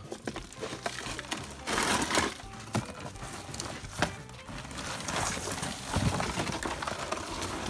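Cardboard boxes being rummaged through by hand: flaps scraping and rustling, with several sharp knocks as boxes and their contents shift, over faint background music.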